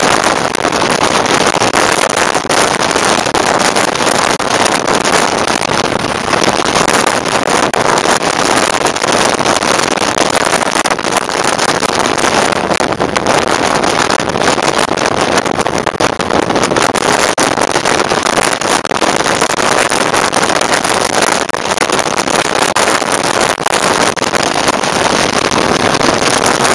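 Steady, loud wind rush over the camera microphone on a motorcycle moving at freeway speed, mixed with engine and road noise.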